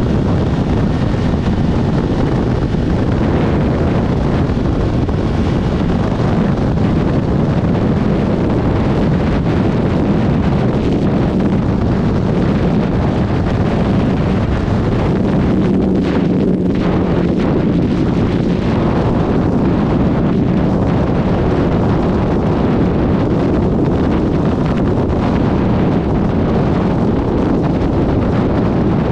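Heavy wind rush on the microphone over the steady drone of a Suzuki GSX1300R Hayabusa's inline-four engine cruising on a motorway.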